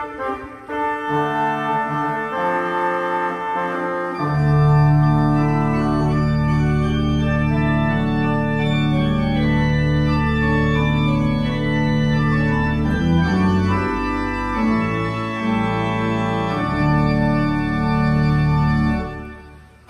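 Organ music: slow, held chords, with deep bass notes coming in about four seconds in, fading out near the end.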